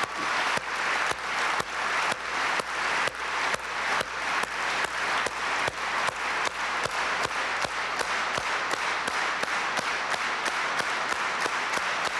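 A large auditorium audience applauding, the clapping falling into a rhythmic unison beat that speeds up near the end.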